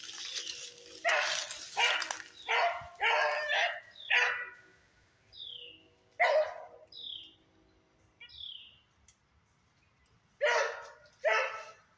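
Rabbit-hunting dog barking: a quick run of five barks, a single bark about halfway, then two more near the end.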